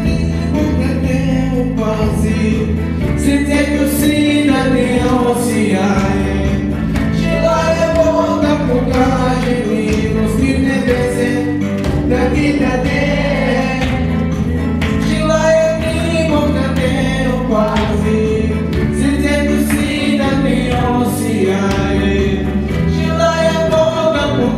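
Music: a song with singing over a steady, sustained bass line.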